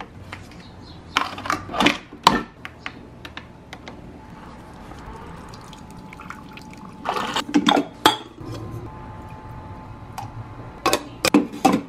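Keurig K-Cafe pod coffee maker brewing: a steady hum as coffee streams into a glass mug, with several sharp clicks and clinks from buttons being pressed and the steel milk-frother jug being handled.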